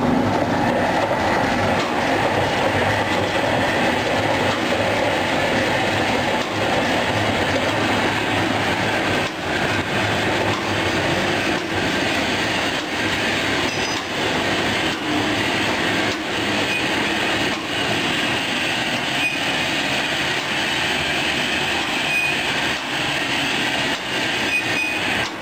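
Rotary pleating machine running steadily, its grooved rollers scoring filter media and folding it into pleats with a continuous mechanical running noise.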